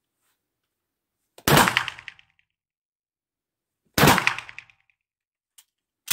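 Two shotgun shots about two and a half seconds apart, each with a short echo off the concrete walls of an indoor range tunnel. A small click near the end as the break-action shotgun is opened.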